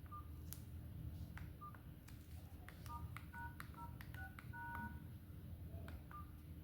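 Phone keypad dialing tones: keys pressed one after another, each giving a short two-note beep with a click, about half a dozen in quick succession in the middle, the last held a little longer, over a low steady hum.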